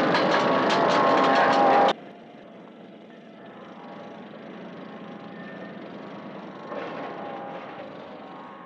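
Heavy construction machinery running loudly, a dense diesel engine clatter with steady tones, cutting off abruptly about two seconds in; a much quieter steady noise follows.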